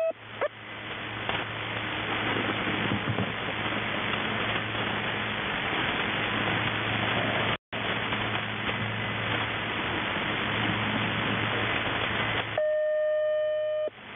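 Shortwave radio reception through a receiver in upper sideband on 3243 kHz: a steady hiss of static with a low hum under it, cutting out completely for a moment about halfway. Near the end the hiss drops away and a steady beep-like tone holds for over a second.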